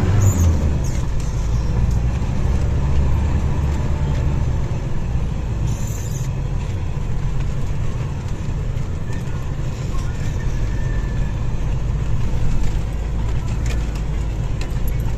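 Off-road vehicle's engine and drivetrain running steadily, heard from inside the cabin while driving on a snow-covered track: a continuous low rumble, with a few faint ticks.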